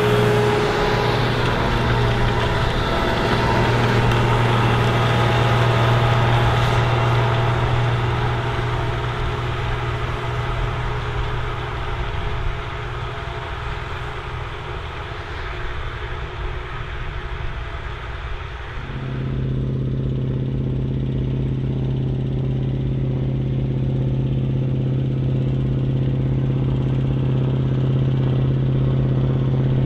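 Big articulated farm tractor's diesel engine running steadily. About 19 seconds in the sound changes abruptly to a smoother, more even engine drone.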